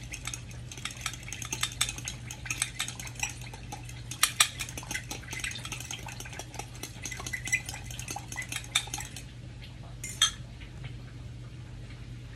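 A spoon stirring melted butter and honey in a glass measuring cup, clinking rapidly against the glass, stops about three-quarters of the way through, followed by a single clink.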